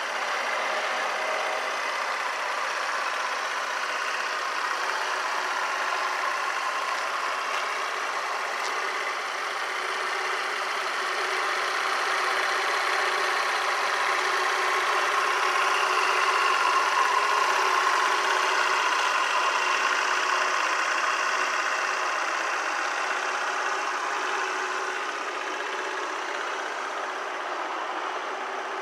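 Honda Today 50cc scooter's single-cylinder four-stroke engine idling steadily.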